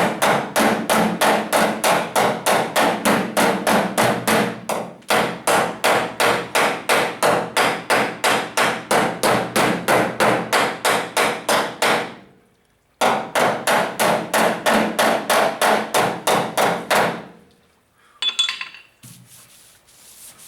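Hammer rapping steadily on a pickup bedside's sheet metal, about three blows a second, to work out a big dent. The blows come in three long runs, broken by short pauses about 5 and 12 seconds in, and stop a few seconds before the end.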